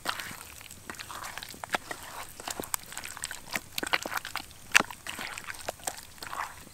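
Hands kneading raw chicken drumsticks in thick egg-and-flour batter in an enamel bowl: irregular wet squelching and sticky smacks as the meat is squeezed and turned.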